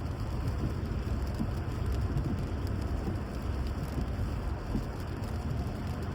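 Steady rain with a heavy, even low rumble underneath and scattered light pattering ticks.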